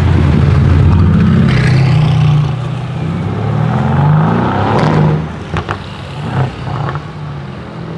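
Mercedes-AMG GT S twin-turbo V8 through a straight-pipe exhaust, running loud and accelerating with the engine note climbing, then lifting off about five seconds in. A few sharp exhaust crackles follow on the overrun.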